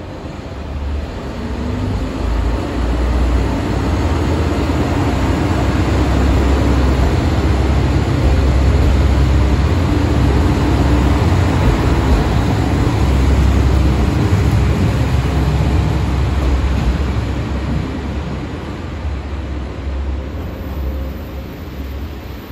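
Sanriku Railway 36-700 diesel railcar coupled with a 36-R retro car pulling out of the platform. A deep engine rumble builds as the cars move past, is loudest around the middle, then fades as the train draws away.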